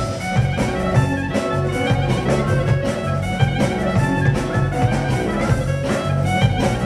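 Instrumental band music: a steady, repeating bass line and drums under stringed instruments carrying the melody.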